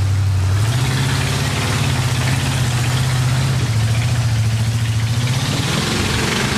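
Off-road vehicle's engine running under load as it crawls up a rocky hill climb, its pitch rising and falling a few times as the throttle is worked.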